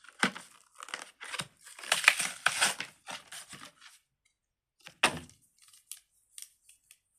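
A plastic fidget toy being handled: crinkling, tearing-like rustling for about four seconds, a single sharp knock about five seconds in, then a few small clicks.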